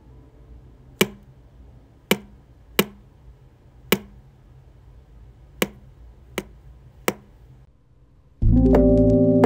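Meat cleaver chopping goat meat on a wooden cutting board: seven sharp chops at uneven intervals, each with a short woody ring. Near the end, loud lo-fi background music comes in.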